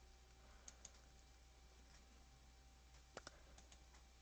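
Near silence with a few faint computer mouse clicks: two quick clicks under a second in and a few more a little after three seconds.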